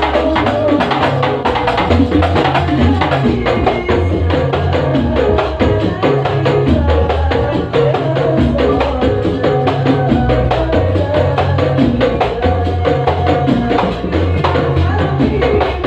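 Men singing a melody into microphones over a quick, steady rhythm of hand-beaten frame drums (rebana), amplified live.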